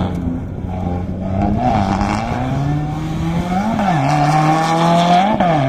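Rally car engine running under load, its pitch climbing, then twice jumping up and dropping back sharply in the second half, as at quick gear changes.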